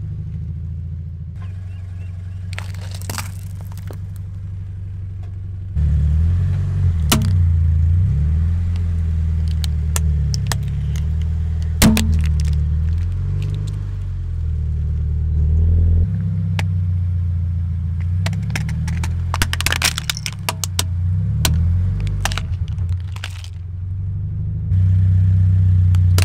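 A car engine running at low revs as the car creeps over objects, a steady low hum that shifts abruptly several times. Scattered sharp cracks and pops come through as plastic items and liquid-filled containers burst under the tyre.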